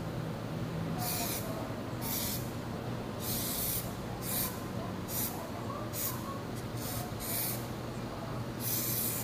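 Aerosol spray can of gloss varnish sprayed in about ten short bursts, each a second or less, with pauses between, as a varnish coat goes onto a painting.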